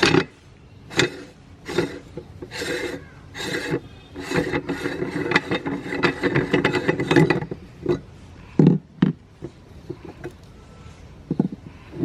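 A large crunchy cookie being crunched and ground up in a meat grinder, with dry rasping and cracking in irregular bursts that are densest in the middle and thin out towards the end.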